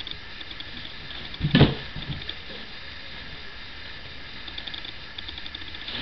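A dog burrowing into a blanket inside a cardboard box: a scratchy, ticking rustle of claws on fabric and cardboard, with one loud thump about a second and a half in as the box is knocked.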